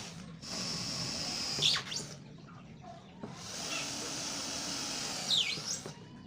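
A handheld power tool motor running in two bursts of about two seconds each. Each burst ends with a brief falling squeal.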